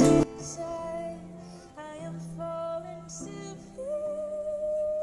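A female street busker singing through a small amplifier over her own strummed acoustic guitar, ending on one long held note.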